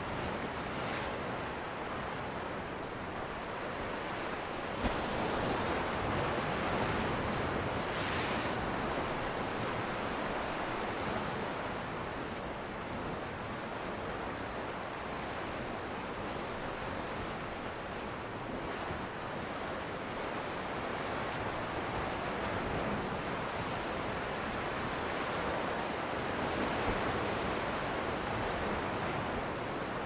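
Ocean surf: a steady rush of waves breaking and washing over a rocky shore, swelling and easing slowly.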